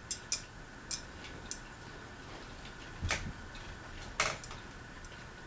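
Hampton Bay Courtney ceiling fan running on low speed with a steady faint hum. Irregular light clicks come through as it wobbles; the owner puts the wobble down to a couple of missing screws.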